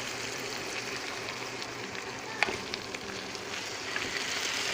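Rice and dal frying in hot oil with a tomato-ginger-chilli paste, sizzling steadily in the pan, with a light tap about two and a half seconds in.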